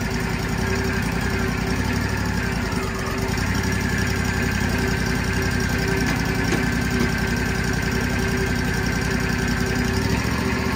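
Engine of a portable band sawmill running steadily while a log is sawn into posts.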